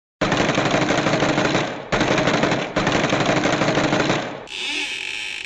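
Machine-gun fire sound effect: three long bursts of rapid shots, the first starting just after a short silence, followed near the end by a thinner, higher, steadier sound.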